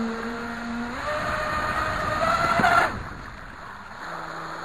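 Brushless electric motor of a radio-controlled jet ski (3660-size 3180kv water-cooled inrunner driving a KMB Jet 28 water-jet pump) whining, its pitch climbing as the throttle opens from about a second in, then cutting off sharply before the halfway point and settling to a lower, quieter tone. The rush of water spray sits underneath.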